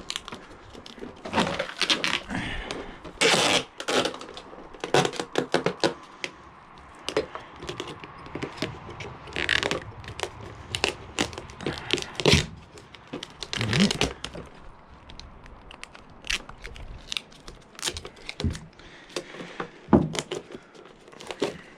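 Duct tape being pulled off the roll and torn in short, irregular rips, mixed with knocks and scrapes of handling.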